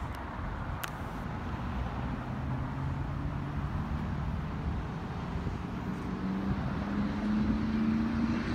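A motor vehicle engine going by, its hum rising in pitch and getting louder toward the end, over a steady low rumble.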